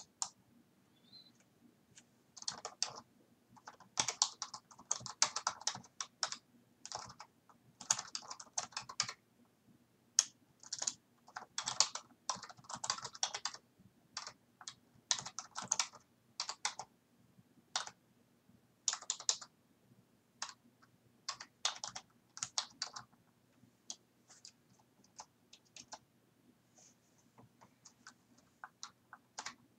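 Computer keyboard typing in irregular runs of quick keystrokes separated by short pauses, thinning out to scattered single keystrokes in the second half, over a faint steady hum.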